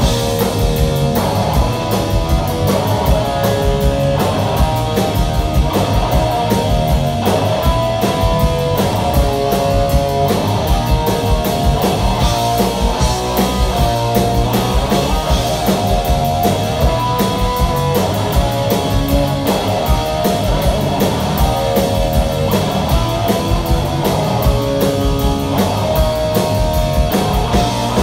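Live punk rock band playing an instrumental passage: electric guitar, electric bass and drum kit, with the drums keeping a fast, even beat.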